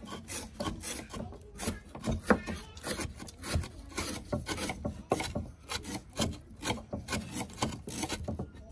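Kitchen knife mincing on a cutting board: a quick, uneven run of chopping strikes, about four a second.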